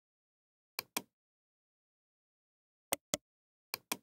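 Computer mouse clicks in three pairs, each pair about a fifth of a second apart, with dead silence between them.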